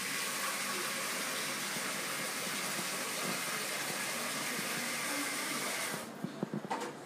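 Steady, loud hiss that cuts off abruptly about six seconds in, followed by a few short knocks.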